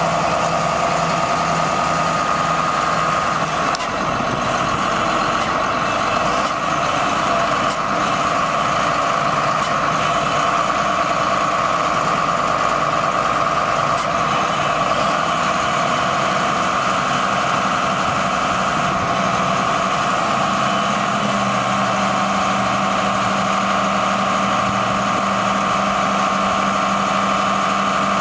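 1992 John Deere 770BH motor grader's diesel engine running steadily, its pitch shifting slightly about halfway through as the engine speed changes.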